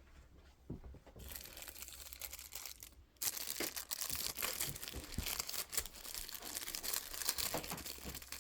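Plastic wrapping crinkling and rustling as it is handled and pulled open. It is faint at first and becomes a steady, dense crinkle about three seconds in.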